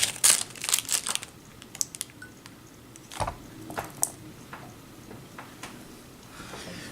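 Hands rummaging through plastic kit parts and bags while searching for a lost part: a quick run of crinkling and clicking in the first second, then scattered light clicks and taps.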